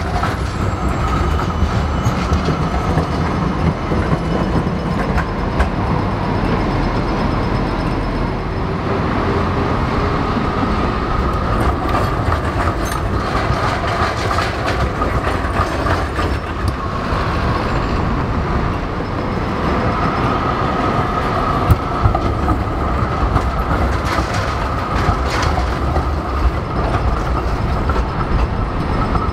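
Electric street trams rolling through a tram-track intersection: a steady rumble of wheels on rail with street traffic, and scattered clicks as the wheels cross the track joints and crossings.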